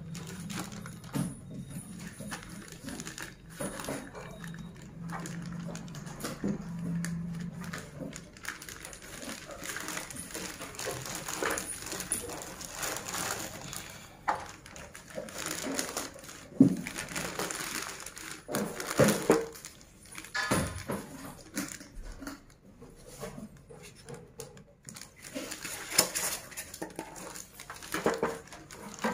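Clear plastic wrapping crinkling and rustling as a two-burner glass-top gas stove is pulled out of its bag, with a few sharp knocks from handling the stove.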